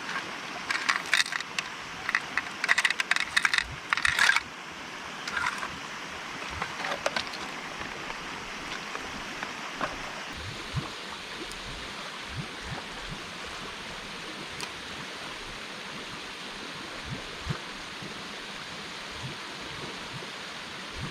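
A quick run of sharp clicks and rattles of small hard objects for about four seconds, then only an occasional single click over a steady outdoor hiss.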